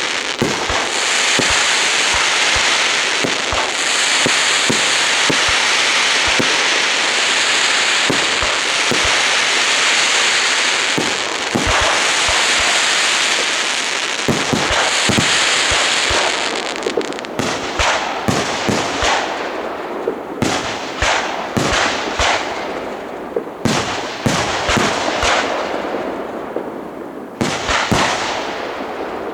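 Fireworks display: a dense, continuous crackling of many effects at once for the first half or so, then a run of separate sharp bangs and pops of shells bursting, with crackle between them.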